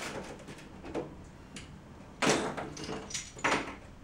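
Plastic Lego bricks being pried apart and handled: a run of small clicks and knocks, with a louder clatter about two seconds in and another shortly before the end.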